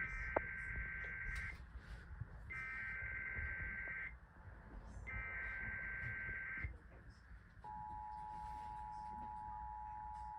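Emergency Alert System test tones over a radio broadcast: three bursts of the SAME digital header, each about a second and a half long with short gaps between. About three quarters of the way in, the steady two-tone EAS attention signal starts and holds.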